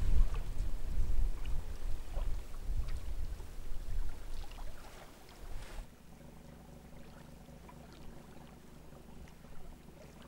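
Strong north wind gusting on the microphone, a deep uneven rumble with a few light knocks. About six seconds in it cuts off suddenly to a much quieter steady low hum.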